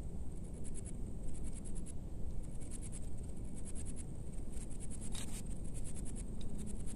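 High-pitched insect chirping in short pulsed trains that repeat about once a second, over a steady low rumble, with a few faint clicks.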